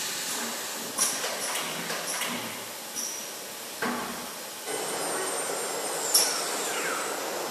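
Italmac aluminium profile machining centre working through its cycle: a series of sharp mechanical clicks and knocks from its clamps and gripper. A steady machine whir sets in about five seconds in, and near the end a sharp knock is followed by a falling whine.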